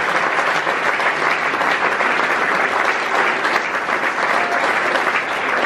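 An audience applauding: a steady, dense patter of many hands clapping.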